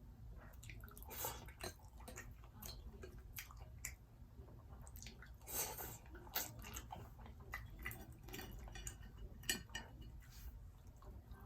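A person chewing and biting fried seafood close to the microphone: irregular mouth clicks and crunches, with a longer crunching bite about halfway through and a sharp click later on.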